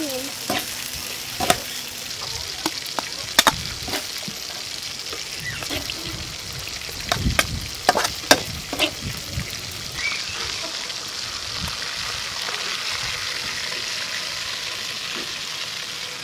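Shredded cabbage, carrot and glass noodles sizzling in a hot wok as they are stir-fried, with a steady hiss. The stirring utensil knocks and scrapes against the wok several times, most often around seven to nine seconds in.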